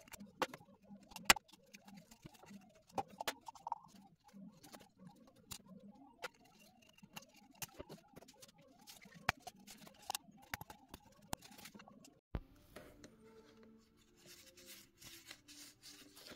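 Scattered light clicks and knocks of a Mercedes M272's oil filter housing cap and paper filter element being handled and fitted together, with one sharper knock just over a second in and another about twelve seconds in.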